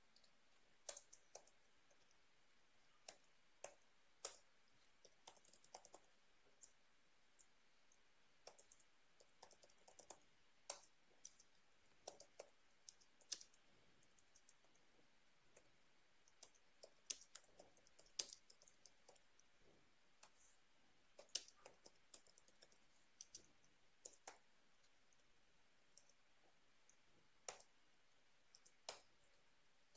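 Computer keyboard typing: faint, irregular key clicks in uneven bunches, with short pauses between them.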